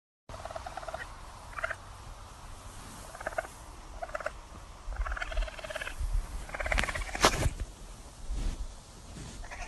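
Baby raccoon chittering: a series of short pitched chirps about once a second, with a sharp click about seven seconds in.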